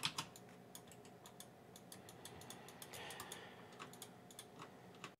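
Faint, irregular clicking of a computer keyboard and mouse, over a low steady hum.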